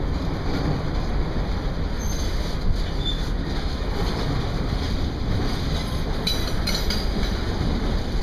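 CSX intermodal train's container well cars rolling past: a steady rumble of steel wheels on the rails, with a few brief high wheel squeals, most of them about six seconds in.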